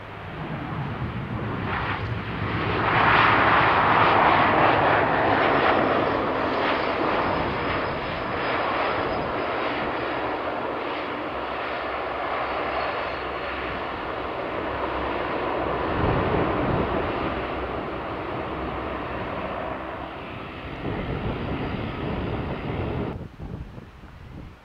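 Turboprop engines of an airBaltic Bombardier Dash 8 Q400 as the airliner rolls past along the runway: a loud, steady rushing drone that swells about three seconds in, stays strong, and cuts off suddenly near the end.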